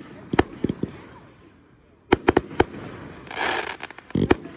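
Fireworks display close by: aerial shells bursting with sharp bangs, a few about half a second in and a quick cluster just after two seconds, then a brief hiss and a deeper boom near the end.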